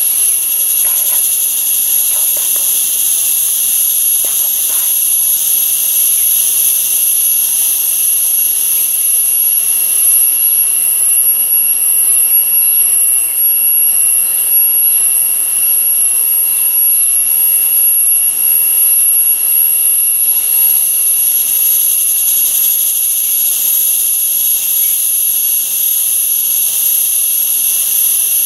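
Jungle insect chorus, a loud steady high-pitched drone in several pitches held without a break.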